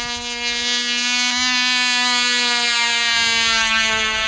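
Cox .049 two-stroke glow engine on a small RC biplane running flat out in flight: a loud, high-pitched steady buzz that wavers slightly in pitch.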